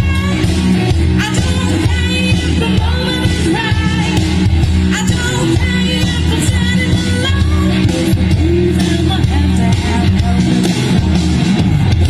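Live blues band playing loud through a PA system: a heavy steady bass and drum low end under a wavering lead melody line.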